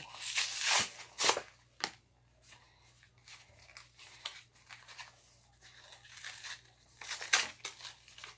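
Cardboard-backed Pokémon card pack packaging being torn and pried open by hand. Several sharp rips come in the first two seconds, then quieter rustling, then more tearing about seven seconds in.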